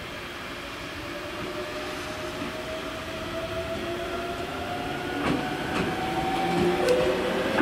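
Ichibata Electric Railway 1000 series electric train pulling away from a station: its drive whines, rising slowly in pitch and getting louder as it accelerates. From about five seconds in, a few sharp clacks of the wheels over the rail joints.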